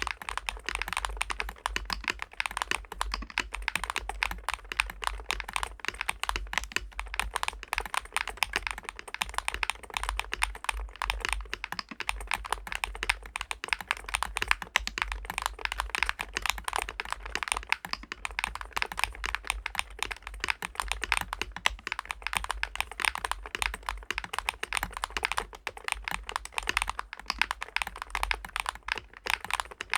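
Fast, continuous typing on a DAREU COOL60 magnetic-switch keyboard: a dense, unbroken stream of key clicks.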